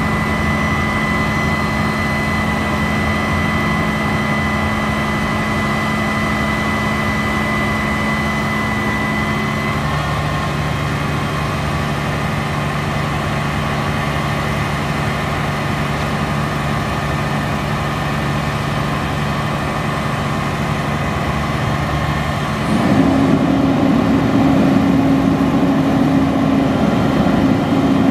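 Diesel engine of a 2007 Peterbilt 340 crane truck running steadily to power the crane, with a high steady whine over it that stops about ten seconds in. About 23 seconds in, the engine speeds up and gets louder.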